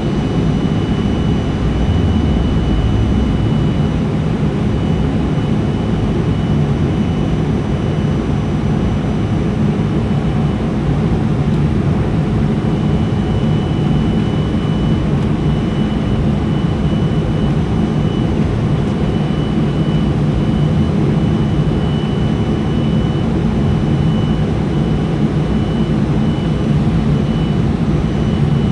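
Jet airliner's engines and rushing air heard from inside the cabin: a steady loud rumble with a thin, steady high whine above it.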